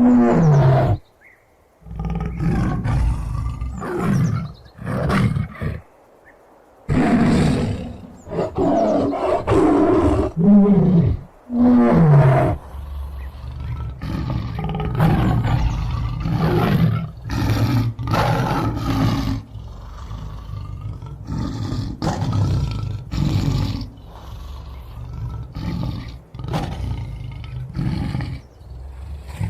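Tiger roaring and growling: several loud roars, some falling in pitch, with two short pauses in the first half, then a long run of rumbling growls.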